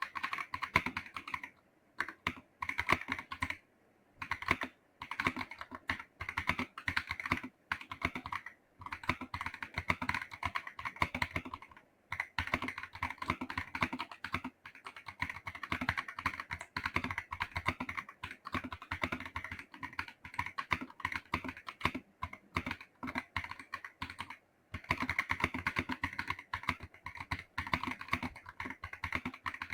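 A MageGee rapid-trigger 68-key keyboard with magnetic switches being typed on: fast runs of key clicks, broken by short pauses every few seconds.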